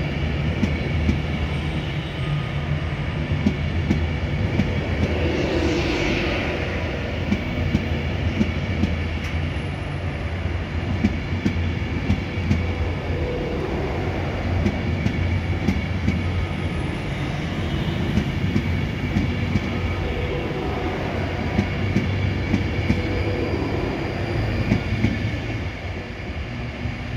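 Class 390 Pendolino electric train pulling away and rolling past, with a steady electric hum and frequent clicks of its wheels over rail joints. The sound drops away in the last couple of seconds as the last car goes by.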